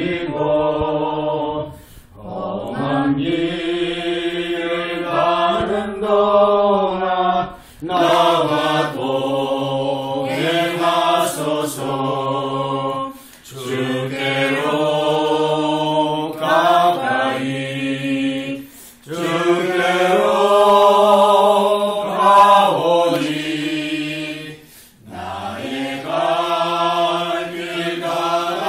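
A small group of men and women singing a hymn together, unaccompanied. The singing comes in held phrases of about five seconds, with short breaks for breath between them.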